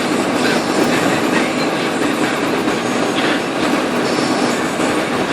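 Steady road and tyre noise from a 1998 Dodge Durango driving on a snow-covered road, an even rumble and hiss.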